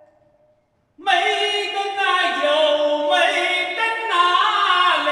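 Unaccompanied choir singing a Zhuang folk song in several parts, entering about a second in after a brief silence with long held notes that shift pitch step by step.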